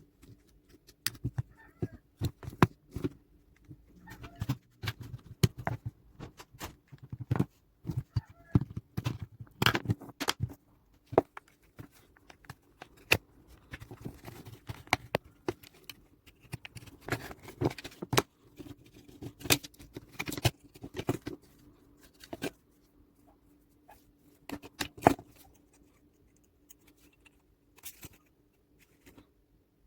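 Remote control being handled and worked on by hand: irregular clicks, taps and light scraping of its plastic case and parts, thinning out after about two-thirds of the way through. A faint steady hum runs underneath.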